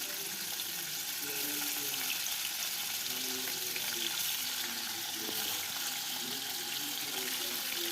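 Paneer cubes frying in hot oil in a karahi: a steady sizzle.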